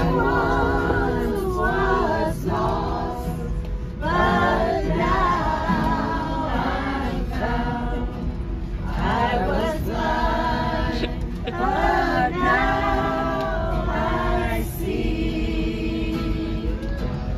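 Music with women's voices singing together in a choir-like, gospel style, in sung phrases a few seconds long with brief breaks between them.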